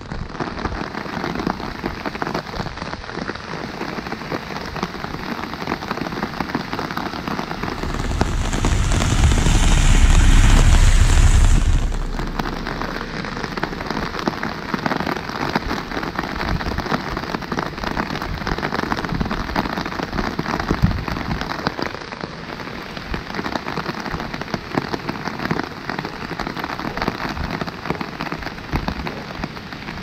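Steady rain pattering on an umbrella overhead, a dense crackle of drops. About eight seconds in, a louder rushing swell with a low rumble rises and fades over some four seconds.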